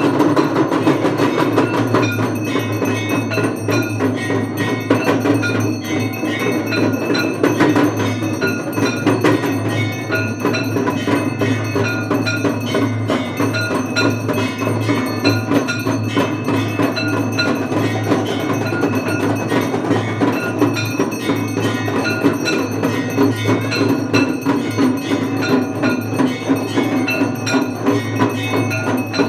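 Temple bells rung rapidly and without pause, with other struck percussion, in the ritual ringing of a Hindu aarti, over a steady low drone.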